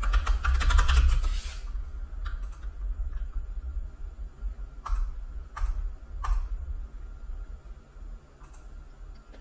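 Computer keyboard and mouse clicks while a trade order is entered: a quick run of clicks in the first second and a half, then single clicks every second or so, over a steady low rumble.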